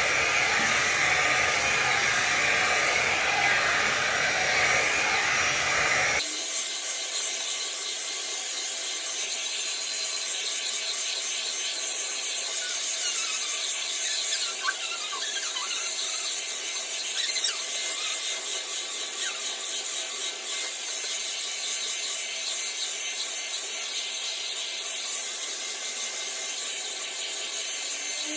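Philips hot air brush blowing steadily as it is worked through hair, the bristles rubbing with a scratchy sound. About six seconds in, the sound turns abruptly thinner and hissier, losing its low part.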